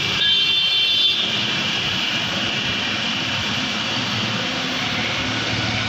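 The universal motor of a 5 kg demolition hammer (breaker) running steadily with a high whine, on test after a field coil replacement.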